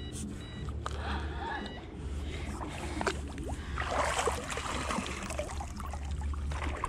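A hooked fish thrashing and splashing at the water's surface as it is drawn in toward a landing net, loudest in a burst about four seconds in, over a steady low rumble.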